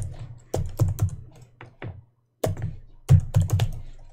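Typing on a computer keyboard: a quick, irregular run of loud keystrokes, each click with a low thud, broken by a short pause about two seconds in.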